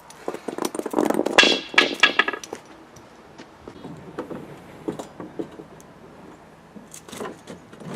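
Fiberglass bumper being offered up and pushed onto the car's rear: a quick cluster of clattering knocks and rattles in the first two and a half seconds, then scattered lighter taps and clicks.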